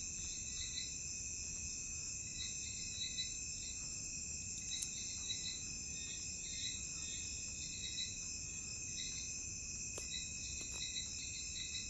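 Insect chorus: a steady high-pitched trill with short runs of chirps repeating over it.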